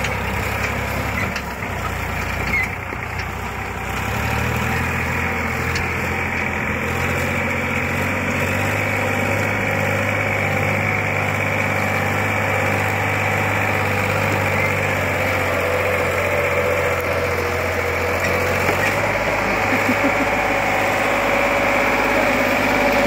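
Sonalika DI 740 tractor's diesel engine running steadily as it hauls a trolley loaded with sugarcane, growing louder as it comes closer near the end.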